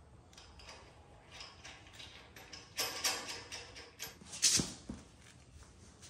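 Scattered handling noises, short scrapes, rustles and clicks of parts and tools being moved, with two louder scraping knocks about three seconds and four and a half seconds in.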